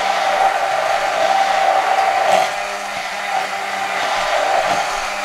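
Electric hand blender running steadily in a jug, blending yogurt with coriander, mint leaves and green chillies into a green raita. It gives a steady motor whine that swells and eases a little as the blender works.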